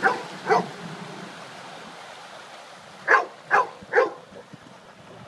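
A dog barking: two barks at the start, then three more in quick succession about three seconds in.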